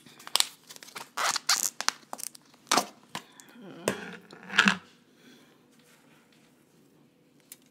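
Thin plastic deli tub crackling and snapping in a quick run of bursts as its lid is pried off and it is handled, over the first five seconds or so.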